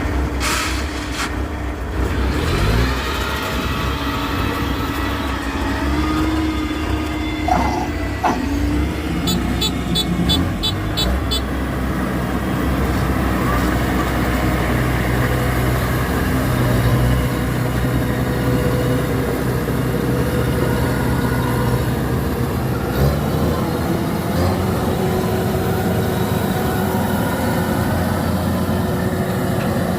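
Kubota DC-93 combine harvester running steadily under load while cutting rice, its engine a continuous drone. About a third of the way in there is a quick series of short beeps.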